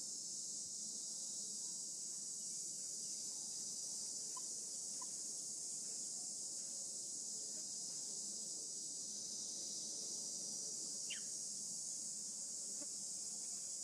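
Steady high-pitched insect chorus, an even shrill hiss that does not change. A single short falling whistle cuts in about eleven seconds in.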